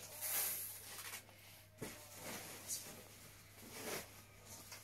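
Intermittent rustling and handling of a monitor's accessories and their packaging: several short scuffs and crinkles.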